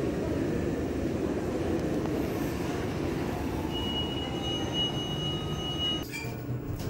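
Steady low rumbling hum of a large indoor shopping-mall atrium, with a thin, steady high whine from about the middle that stops near the end, when the hum abruptly thins out.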